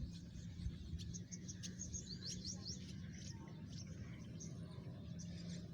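Small birds chirping in the background, a scatter of short quick rising chirps, over a low steady hum.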